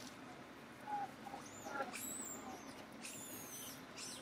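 A few faint, short, high-pitched animal squeaks, some about halfway through and more near the end, over steady outdoor background noise.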